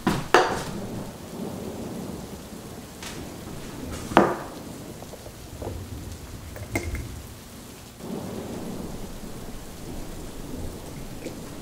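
Thunderstorm: steady rain with thunder, a sharp crack shortly after the start and a louder one about four seconds in, then a low rumble toward the end.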